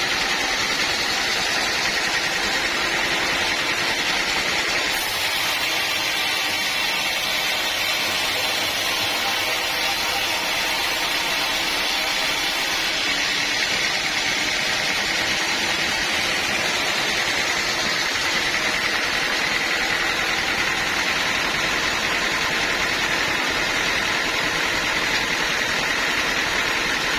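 Sawmill machinery running steadily, a constant mechanical drone with no breaks.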